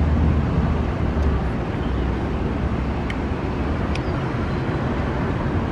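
Street traffic noise: a steady low rumble, with two faint clicks about three and four seconds in.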